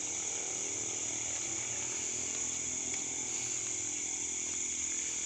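Steady chorus of crickets and other night insects, a continuous high-pitched trill that never breaks.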